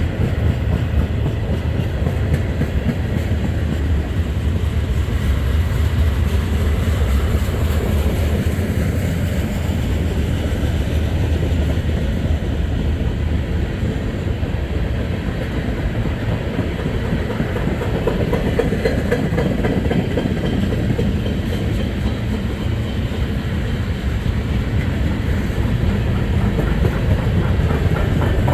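Freight train passing, its cars rolling steadily over the rails in a continuous loud rush of wheel and rail noise.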